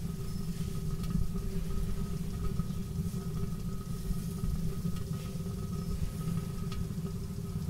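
Fire whirl burning inside a wood-gas (TLUD) burner: a steady low rumble with a faint steady hum over it and a few faint ticks.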